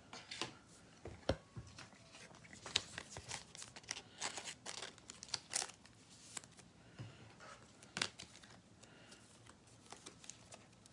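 Faint crinkling and rustling of trading cards and plastic or foil packaging being handled, with scattered soft taps and clicks.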